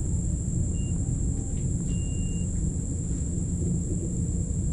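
Steady low rumble under a constant high-pitched drone of crickets.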